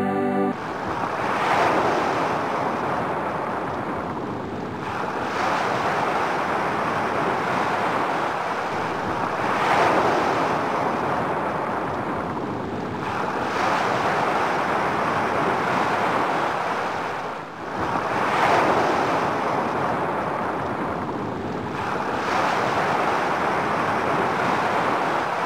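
Sea waves breaking on a beach, the wash swelling and fading about every four seconds.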